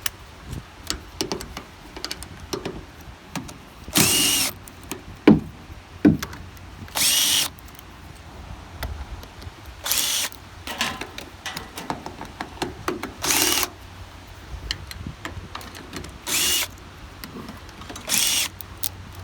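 Power drill run in six short bursts of about half a second each, a few seconds apart, working fasteners. Scattered metallic clicks and knocks fall between the bursts.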